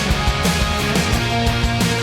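Background rock music: distorted guitars, bass and drums with a steady beat.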